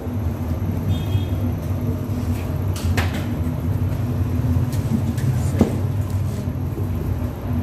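Steady low hum of bakery machinery, with a short sharp sound about three seconds in and another just past five and a half seconds.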